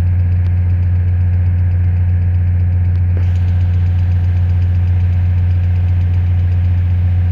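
Diesel engine of harvest machinery running at a steady speed, a deep even drone with no change in pitch or level.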